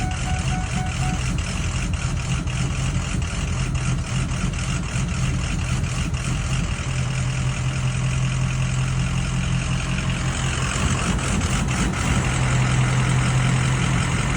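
Ford 6.0 Powerstroke V8 diesel idling steadily, with faint fine ticking over its low hum; the engine has a rough-idle complaint and has run 30 miles on REVX treatment. It grows a little louder in the last few seconds.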